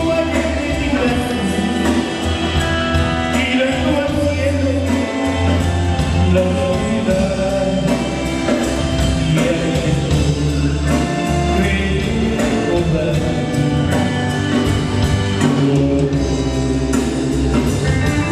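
Male lead singer singing over a live band's amplified music, with drums and a steady low beat.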